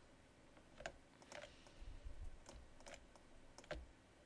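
Faint clicks of a computer mouse and keyboard in use, about five separate clicks spread out a second or so apart, with a few soft low thumps around the middle.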